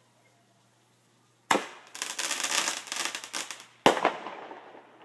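Fireworks going off: a sharp bang about a second and a half in, then a rapid crackle of many pops for about two seconds, then a second sharp bang that fades out.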